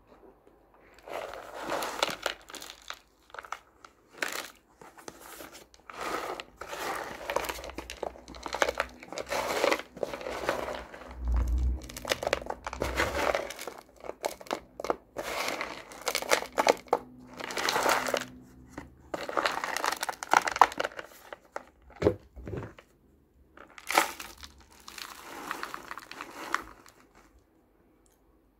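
Irregular bursts of crinkling and crackling from a plastic tub being handled and tipped, with dry crumbled ayilo clay shifting inside it.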